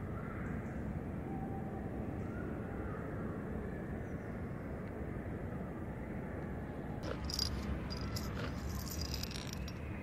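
Steady low outdoor rumble, with a short cluster of high chirps and clicks about seven seconds in.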